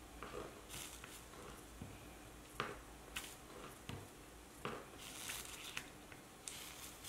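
Soldering iron working a stained glass seam: a few light clicks of the hot tip against glass and solder, and faint sizzling and crackling near the end as the tip melts fluxed solder through the old copper patina.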